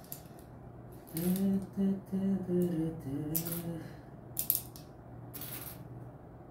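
A man humming a short wordless tune for a few seconds, with crisp clicks and scrapes of small objects being handled around it.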